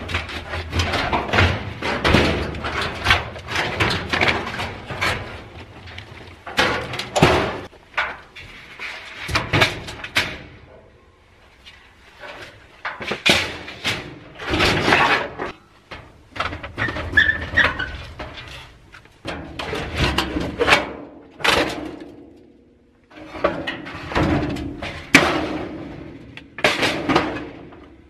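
Sheet-metal cabinet and parts of an old clothes dryer being pulled apart: metal clattering, banging and scraping in irregular bursts a few seconds apart, with a few brief squeals.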